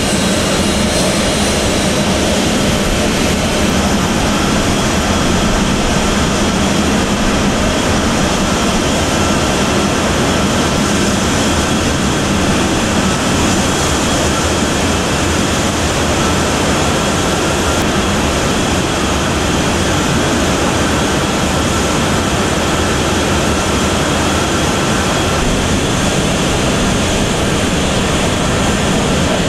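Boeing C-17A Globemaster III's Pratt & Whitney F117 turbofan engines running loud and steady: an unbroken jet roar with a faint steady whine.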